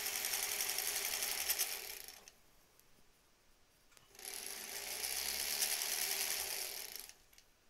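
Sewing machine stitching along a folded fabric tie at a steady speed, a quick even clatter. It runs for about two seconds, stops for about two, then runs again for about three seconds.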